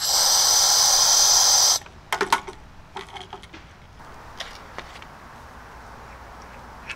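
Compressed air hissing hard out of the fill hose of a Vevor high-pressure (4500 PSI) air compressor as the line is vented, for nearly two seconds, then cutting off abruptly. A few sharp clicks and knocks of the metal fittings being handled follow.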